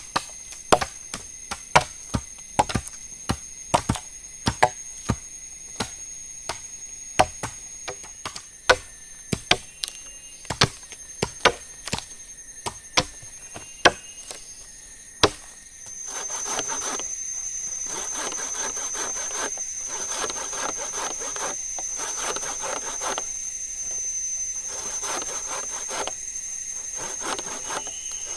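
Wood being chopped with sharp single blows, about one a second. About halfway through this gives way to a hand saw cutting through wood in steady back-and-forth strokes, about two a second.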